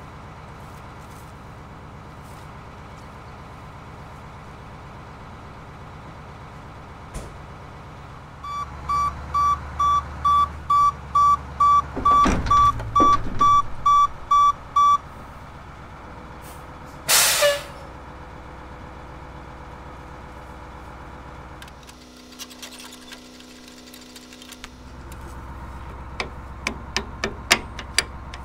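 International service truck reversing, its engine rising and its backup alarm beeping about twice a second for some six seconds, then a short hiss of air as its air brake is set. Near the end, a quick run of metal clicks and knocks as the pintle hitch is latched onto the trailer's lunette ring.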